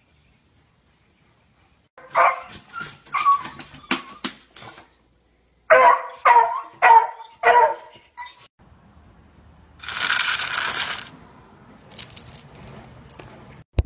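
A beagle barking in two runs of about five barks each, roughly two a second, followed by a hiss lasting about a second.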